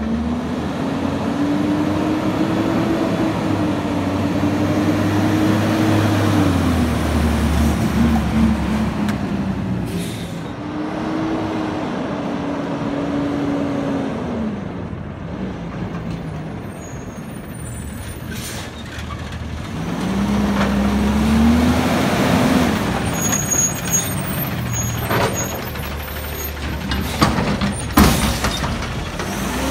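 McNeilus front-loader garbage truck's diesel engine revving up and easing off three times as the truck drives and shifts, with air-brake hisses. Near the end there are a few sharp clanks and knocks as it pulls up close.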